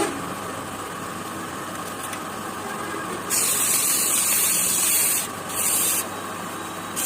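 A wood lathe running steadily, then loud hissing bursts of spray: one of about two seconds a little past halfway, a short one soon after, and another starting at the end.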